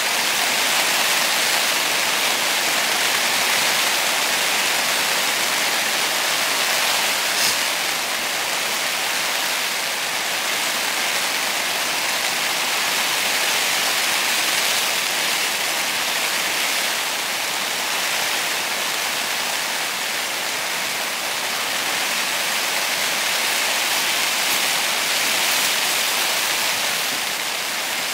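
Steady rain falling on the fabric of a tent, heard from inside it as an even hiss of drops.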